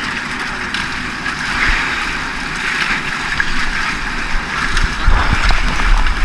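Wind buffeting the microphone over the hiss of the sea on a small fishing boat, the gusts growing stronger and rumbling near the end.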